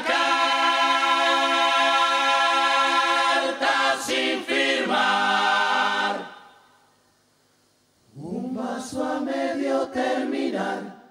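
Murga chorus singing a cappella in several voices: a long held chord, then shorter phrases, a break of about two seconds, and another sung phrase near the end.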